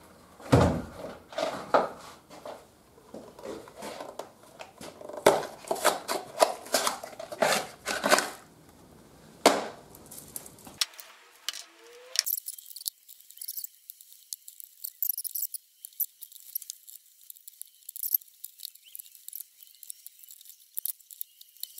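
Metal clinks, clicks and knocks of parts being handled while a guide bar and chain are fitted onto a Husqvarna 372XP chainsaw, its engine off. From about twelve seconds in the sound turns thin, leaving only faint high clicks.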